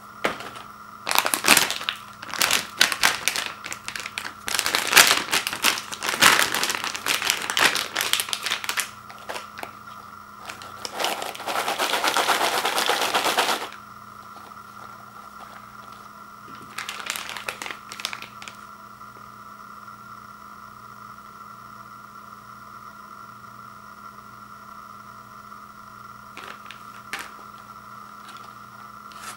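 Crinkling plastic chip bag and rolled tortilla chips pouring out of it into a plastic bowl, in irregular crackly bursts for about the first fourteen seconds. A shorter rustle follows a few seconds later, then only a steady faint hum with a couple of small clicks near the end.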